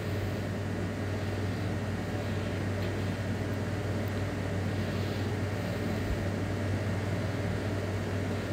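A steady low hum with an even hiss over it: kitchen background noise beside a gas stove while a pot of tomatoes and spices fries.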